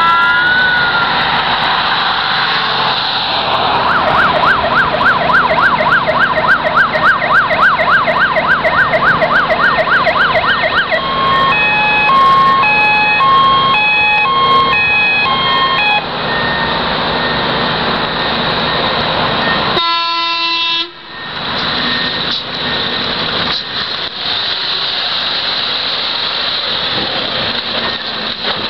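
Siren of a Renault Midlum fire rescue truck on an emergency run, changing modes: a rising wail, then a fast yelp of about three sweeps a second, then a two-tone hi-lo. A brief horn sound follows about twenty seconds in, then the truck's engine and road noise as it drives past.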